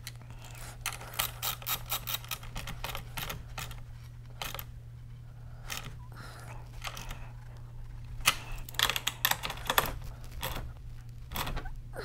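Ratchet wrench clicking in quick runs as a battery terminal clamp nut is tightened onto the battery post, with a short pause about halfway through.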